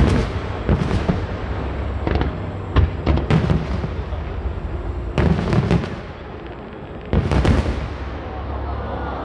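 Aerial fireworks going off: a run of sharp bangs and cracks at uneven intervals, some in quick clusters, each trailing off in an echo, over a continuous low rumble.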